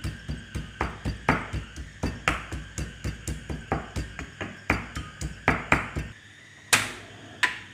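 Garlic being pounded in a stone mortar with a pestle: a quick, uneven run of knocks, several a second, that stops about six seconds in. Two single sharp clicks follow near the end.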